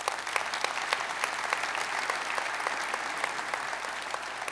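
Audience applauding: many hands clapping steadily in a large hall.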